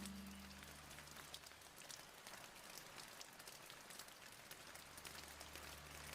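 Faint, steady rain with a scattered patter of individual drops.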